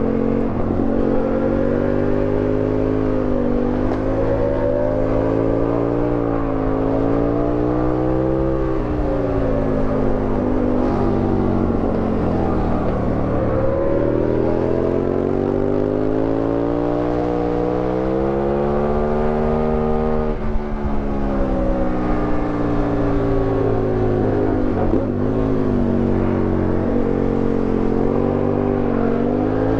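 Aprilia Tuono 1000R's V-twin engine heard from on board, its revs climbing and falling through a run of bends, with a long climb through the middle that drops off suddenly about two-thirds of the way in.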